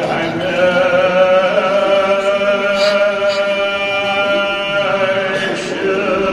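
A man's voice chanting a Kashmiri marsiya, a mourning elegy, holding one long steady note for about four seconds, then breaking into a new phrase near the end.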